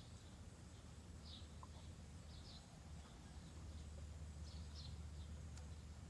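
Faint outdoor ambience: a few short, high bird chirps over a low steady rumble.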